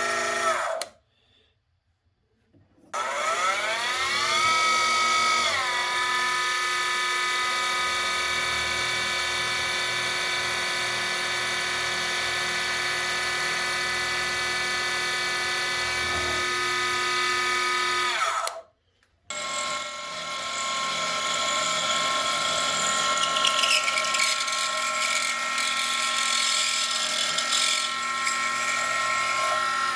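WEN 33013 benchtop mini mill's spindle motor running with a steady whine, rising in pitch as the spindle speeds up a few seconds in, as holes are drilled in a bar of aluminum. The sound cuts out abruptly twice, and a rougher cutting noise joins the whine in the later part.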